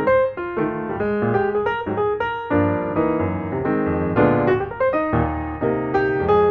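Background piano music: a melody played over chords and a bass line.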